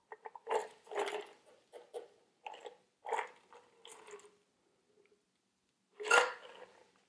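Ice shifting and clinking in a metal cocktail shaker tin while a shaken, creamy cocktail is fine-strained through a mesh strainer into a glass, with a louder rattle about six seconds in.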